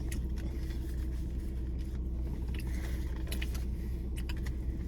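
Steady low background hum, with scattered small clicks and rustles of eating: chewing and handling the food and its wrapping.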